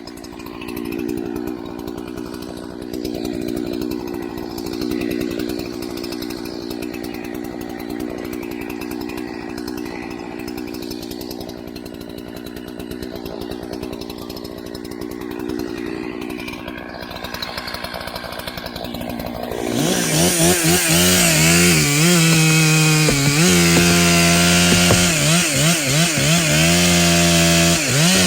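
Husqvarna 372 XP two-stroke chainsaw running at low speed, then about two-thirds of the way through opened up to full throttle and cutting into wood, its pitch dipping and wavering as the chain bogs in the cut.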